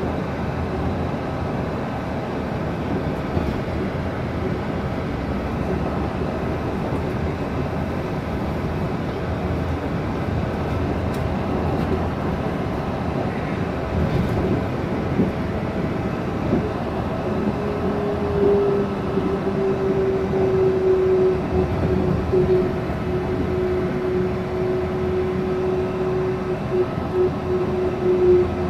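Yurikamome rubber-tyred driverless train running on its concrete guideway, heard from inside the front car: a steady rumble, with a motor whine that comes in a little past halfway and falls slowly in pitch near the end as the train slows for the next station.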